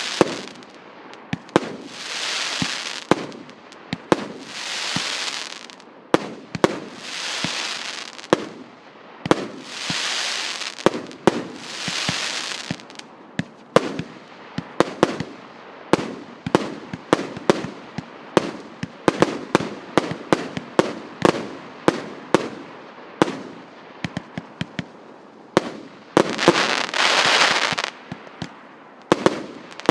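A 100-shot, 1.2-inch consumer firework cake firing in sequence: a rapid string of sharp shots and bursts, one to three a second and thickest in the middle. Some bursts are followed by a second or two of high hissing.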